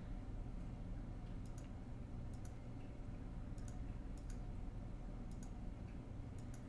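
Computer mouse clicking every second or so, many clicks in quick pairs, over a steady low hum of room or computer noise.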